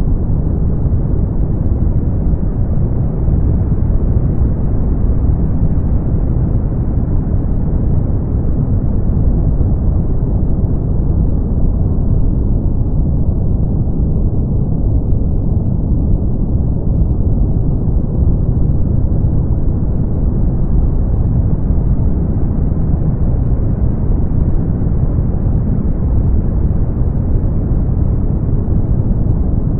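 Continuous brown noise: an even, deep rushing hiss with most of its weight in the bass and very little treble, steady in level.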